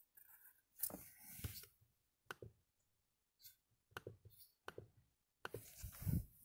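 Faint, scattered clicks and soft knocks of a pencil and hand on paper on a desk, with light pencil scratching in the first couple of seconds.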